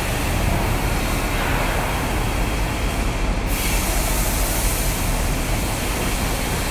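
Truck-mounted crane's engine running steadily during a lift: a continuous low rumble under a broad hiss.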